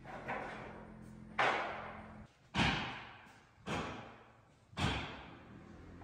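Five heavy hits at an even beat of about one a second. Each starts sharply and rings out for most of a second, over a faint steady hum.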